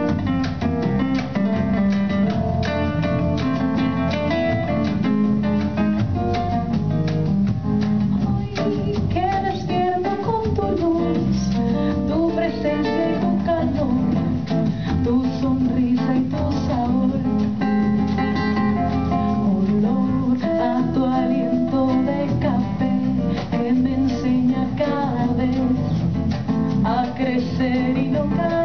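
Live acoustic band: acoustic guitar strumming and hand-drum percussion keeping a steady beat, with a woman's voice singing the melody over them.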